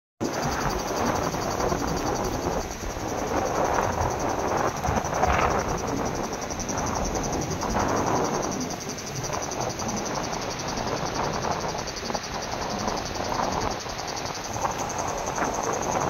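Gusting wind and rough storm surf at the shore: a loud, rough rush that swells and eases every few seconds. A steady, high, fast-pulsing buzz runs underneath it.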